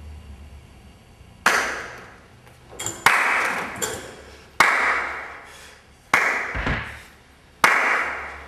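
Five loud, echoing strikes at a steady, slow pace, about one every second and a half, each dying away over about a second.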